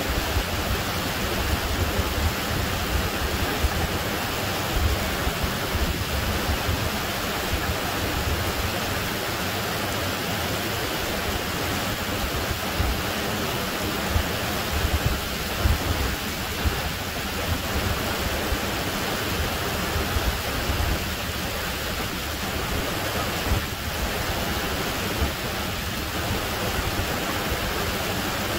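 Steady rushing of a small waterfall cascading over rocks into a creek.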